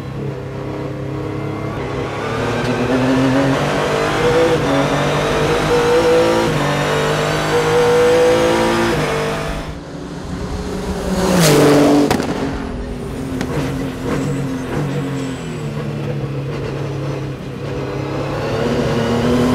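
Renault Sport RS.01 race car's Nissan GT-R twin-turbo V6 at full throttle, heard inside the cockpit, its pitch climbing through each gear and dropping sharply at every quick sequential upshift. About halfway through, the car rushes past a trackside microphone with its pitch falling, then the in-car engine sound returns.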